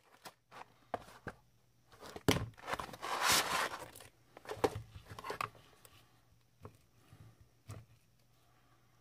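Handling knocks on a wooden end-grain cutting board, with a longer crisp, rustling scrape about three seconds in as a breaded, fried patty is set down. Later come a few single sharp knocks as a santoku knife cuts through the crisp crust and meets the board.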